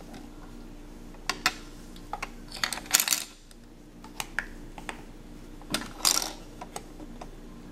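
Small hard-plastic toy kitchen pieces clicking and clattering as they are handled: scattered sharp clicks, with two short bursts of rattling about three and six seconds in, over a faint steady hum.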